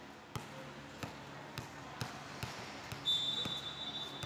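A volleyball bounced on the hardwood court, a thump about every half second or more. About three seconds in, a referee's whistle blows one long steady note, the signal to serve.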